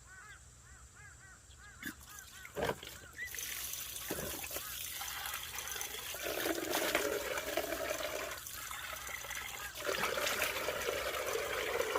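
Cold-water shower turned on about three seconds in, then water spraying and splashing steadily onto a person.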